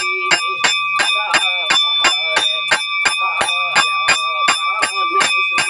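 Shrine bell rung by hand in a steady rhythm of about three strikes a second, its ringing tone carrying on between strikes, during a puja.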